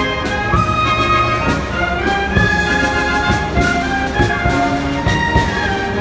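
A military band of clarinets, trumpets and trombones playing a tune together, with held notes in several parts.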